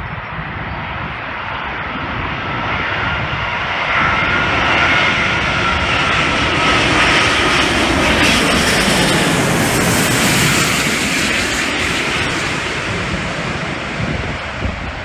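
Lufthansa Airbus A380 on final approach passing low overhead, its four Rolls-Royce Trent 900 turbofans at approach power. The jet noise swells, peaks mid-way with a faint whine that drops in pitch as it passes, then eases off as the aircraft heads away toward the runway.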